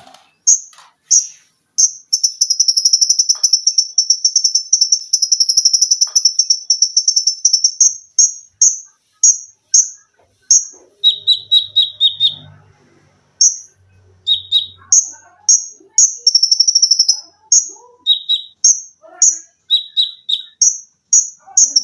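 Kolibri ninja sunbird (konin) singing: a long, rapid, buzzy high trill, then a run of short shrill notes and quick rattled bursts repeated with short gaps.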